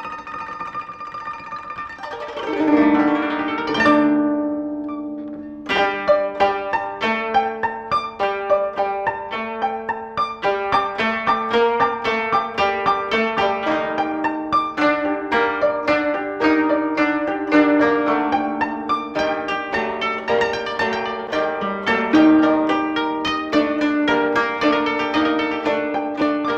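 Instrumental music: a few held notes that swell, then about five seconds in a quick, steady run of plucked notes over sustained lower notes.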